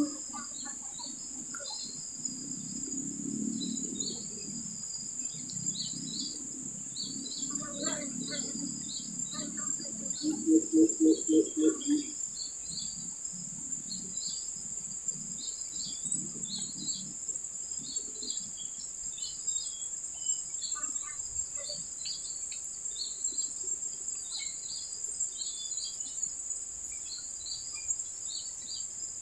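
Steady, high-pitched drone of insects in riverside vegetation, with many short high chirps scattered through it. A low rumble runs under the first half, and a brief low pulsing call comes about ten seconds in.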